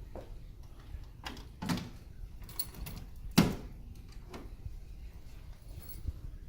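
Several knocks and clunks from handling the metal cabinet of a 1950s U-Select-It coin-operated candy machine. The loudest is a single sharp clunk about three and a half seconds in.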